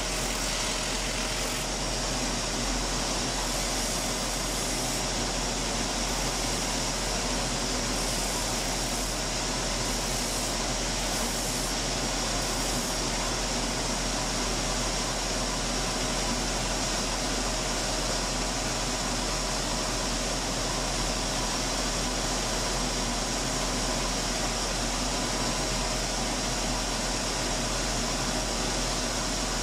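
Steady machine noise: a cobbler's sanding and finishing machine running without a break, a continuous rushing hum with a few faint steady tones, as used for sanding the new heels and finishing the sole edges.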